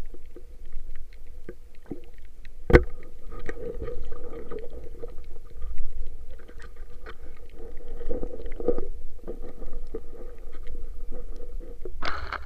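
Muffled underwater sound from a camera on a night spearfishing dive: low rumble and water movement with a faint steady hum and scattered small clicks, and one sharp knock about a quarter of the way in. Near the end a rush of splashing as the camera comes up at the surface.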